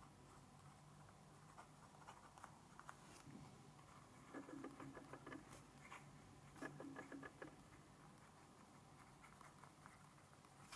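Faint scratching of a fine-nib fountain pen writing on smooth Fabriano Ecoqua paper, in short clusters of small strokes with near silence between.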